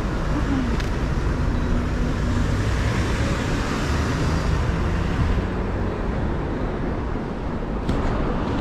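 City street traffic: cars and buses running past at a crossroads, with one vehicle passing closer a few seconds in.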